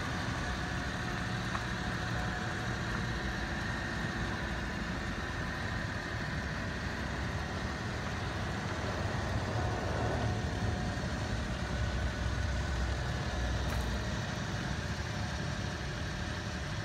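Mitsubishi Minicab kei truck's small engine idling steadily.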